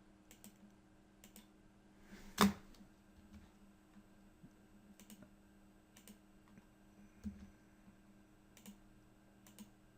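Scattered light clicks of a computer mouse and keyboard, about a dozen spread over the stretch, with one louder click about two and a half seconds in, over a faint steady hum.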